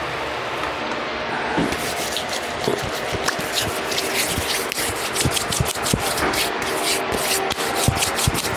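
Hands rubbing together briskly close to the microphone: a run of quick rasping strokes from about two seconds in, over the steady hiss of a large room fan.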